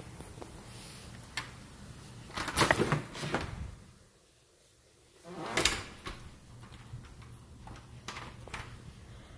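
A painted interior door with a knob and deadbolt being handled, opened and pushed shut, with latch clicks and knocks. The loudest knocks come in a cluster about two and a half to three and a half seconds in, and again at about five and a half seconds; lighter clicks from the knob follow near the end.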